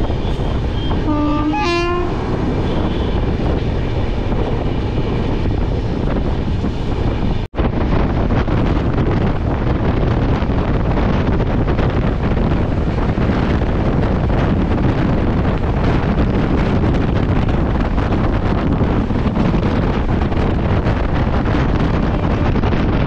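Antyodaya Express passenger train running at speed, heard from on board as a steady, loud rush of wheel, rail and wind noise. A train horn sounds briefly at the very start, and the sound cuts out for an instant about seven seconds in.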